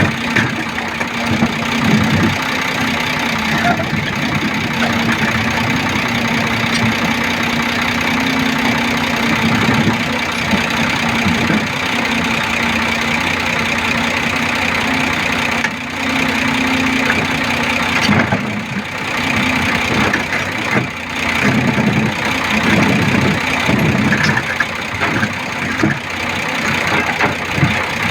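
Volvo backhoe loader's diesel engine running steadily at idle with a constant hum, which gives way to a more uneven rumble about two-thirds of the way through.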